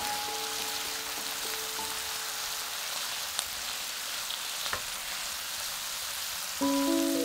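Mixed vegetables (zucchini, mushrooms, bell pepper) sizzling steadily in a hot frying pan as a spatula stirs them, with a couple of light spatula knocks against the pan midway.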